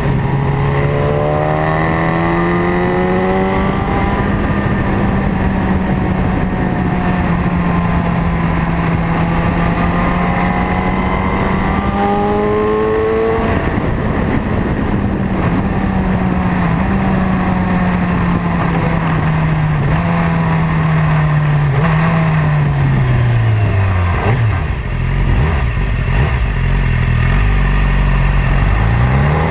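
Motorcycle engine under way, its note climbing at first and then holding fairly steady, with a brief drop about 13 seconds in. It falls away as the bike slows from about 20 seconds in, runs low and rumbling for a few seconds, then revs up again at the very end.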